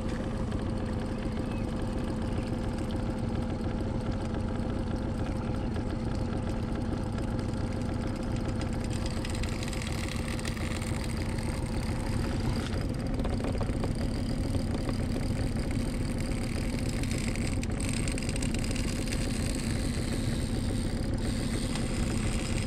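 Small boat motor on an inflatable boat running steadily at constant speed, an even hum that keeps the same pitch throughout.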